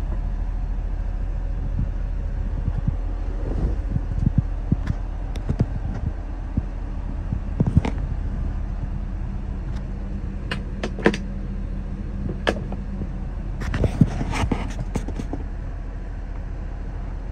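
Idling three-cylinder engine of a 1994 Honda Acty mini truck, a steady low hum heard from inside the cab, with scattered light clicks and knocks throughout and a cluster of them near the end.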